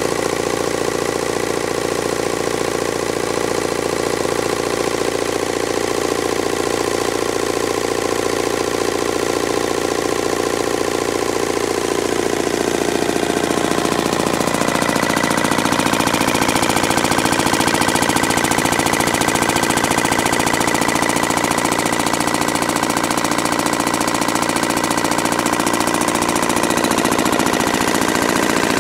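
Enfield MK1 HO100 1135 cc horizontally opposed twin-cylinder air-cooled diesel stationary engine running steadily. About halfway through the sound gets a little louder and brighter.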